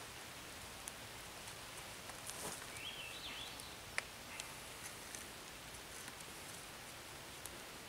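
Forest ambience: a steady hiss with scattered drip-like ticks, and a short wavering bird call about three seconds in. Cord being wrapped and pulled around a wooden pole adds faint rustling, with a sharp tick about four seconds in.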